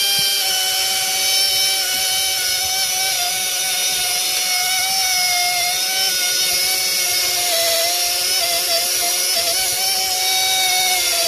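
Air-powered rotary tool with a brush head spinning with a steady high whine and a hiss of exhaust air, its pitch sagging briefly a few times as it is pressed in. It is scrubbing baked-on oil sludge off an engine's cylinder head, breaking it down into small pieces.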